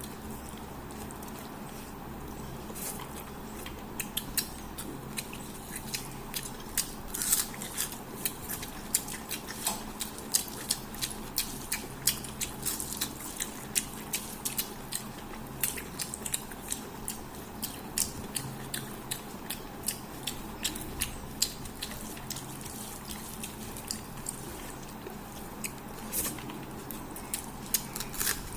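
Close-miked eating of fish head curry with rice: wet chewing and sharp lip-smacking clicks, irregular, a few a second, over a steady low hum.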